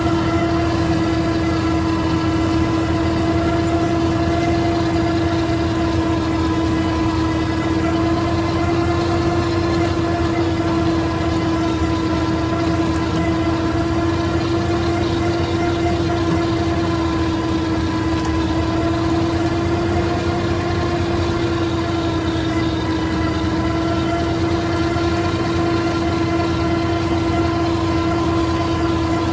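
IMT 533 tractor's three-cylinder diesel running steadily under load while driving a Panex AGM flail mulcher through grass, with a steady high whining tone over the engine's rumble.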